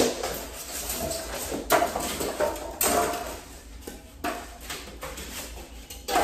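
Unpacking a flat-packed bed frame: plastic wrap rustling, with several knocks and clatters as frame parts and white packing pieces are lifted out and dropped on the floor.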